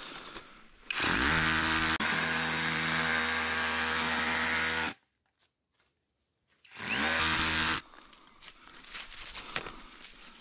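Handheld electric power tool spinning up with a rising whine and running steadily for about four seconds, then cutting off. After a short silence it spins up again for about a second. Fainter scraping and handling sounds surround the two runs.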